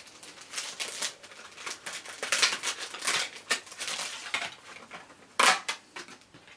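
Crinkling rustles and light clicks of packaging and papers being handled as thin metal cutting dies are taken from their packet, with a louder rustle near the end.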